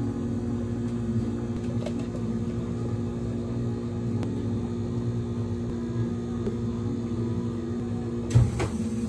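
Steady low machine hum, with a sharp knock about a second before the end.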